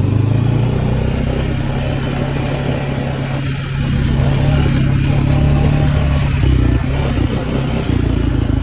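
Four-wheeler (ATV) engine running while the quad is ridden along a dirt trail, a steady low drone that gets a little louder about four seconds in.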